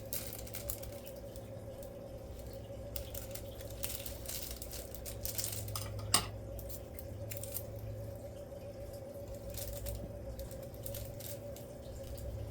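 Scattered small plastic clicks and taps from keyboard keycaps being handled and changed, with one sharper click about halfway through, over a steady low hum.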